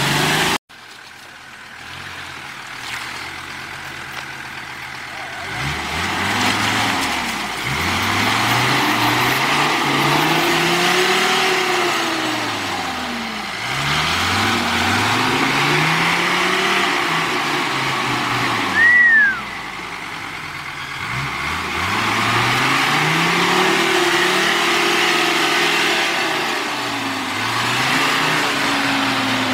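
Off-road vehicle's engine revved up and down over and over, its pitch rising and falling in long swells. About two-thirds of the way through there is a short, loud, high squeal that falls in pitch.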